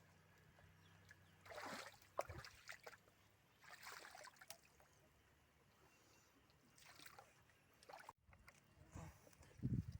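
Faint splashing and sloshing of shallow, muddy paddy-field water, in a few short bursts about 1.5 s, 4 s and 7 s in, with low background quiet between.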